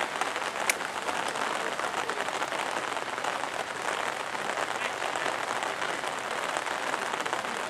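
Steady patter of rain close to the microphone, with one sharp click under a second in.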